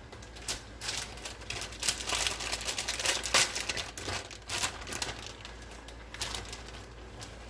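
Packaging of shredded cheddar cheese crinkling and rustling in irregular crackles as the cheese is handled and sprinkled out, easing off about six seconds in.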